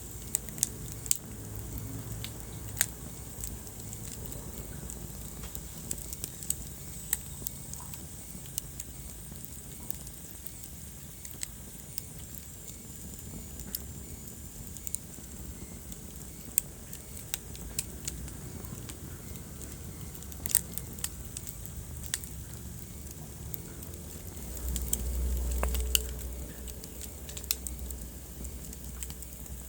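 Wood fire burning in a fireplace, crackling with irregular sharp pops and snaps over a steady low rumble of the flames. About three-quarters of the way through, the low rumble swells louder for a couple of seconds.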